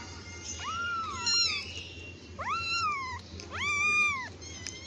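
Kitten meowing: three drawn-out calls about a second apart, each rising then falling in pitch, and a shorter call near the end.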